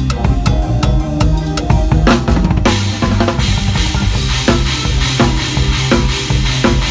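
Band music with a drum kit playing a fast, steady beat of kick and snare, about four strikes a second, over a low bass line.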